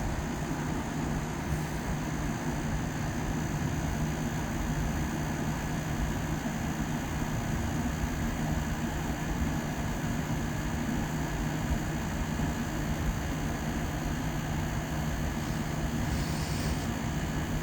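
1987 Montgomery Ward by Frigidaire 7000 BTU window air conditioner running and cooling: a steady rush of air from its fan over a constant low hum.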